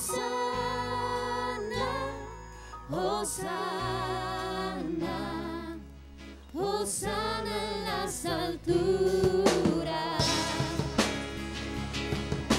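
Live band playing: a woman sings long held notes, some with vibrato, over strummed acoustic guitar, electric guitar and drums. The drums and cymbals get louder about nine seconds in.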